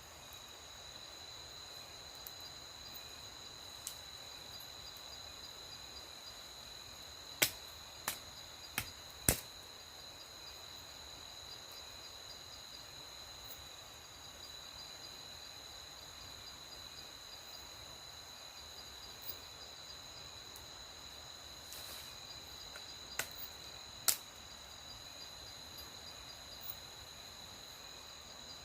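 Night insects, crickets, trilling steadily in several high continuous tones, one of them pulsing fast. A handful of sharp cracks cut through: four close together about a quarter of the way in and two more later.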